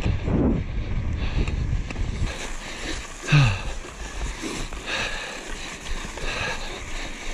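Mountain bike rolling fast over packed snow: wind buffeting the microphone and the tyres hissing and scraping over the snow. About three seconds in there is one short, loud sound that falls in pitch.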